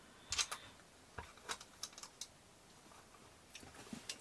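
Faint, scattered clicks and taps of small screws and plastic parts being handled, about seven light ticks spread unevenly.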